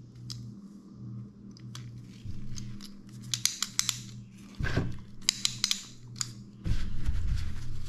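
Sharp clicks and light clatter from a spring-loaded cylinder hone and tools being handled while the hone's stones are oiled, over a steady low hum. A heavier rubbing rumble comes in for the last second or so.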